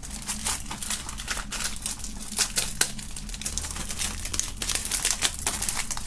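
Clear plastic shrink-wrap being picked at and peeled off a DVD-style album case, with irregular crinkling and crackling throughout.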